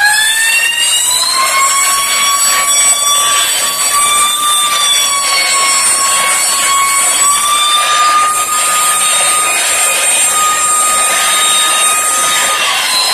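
Air-powered rock drill on a pneumatic support leg running with its rod spinning free: a high whine that rises in the first second, then holds steady over a loud hiss of air. The pitch dips briefly and climbs again near the end.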